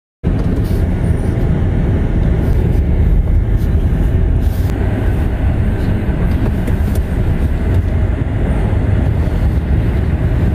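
Steady rumble and road noise of a moving vehicle, heard from on board.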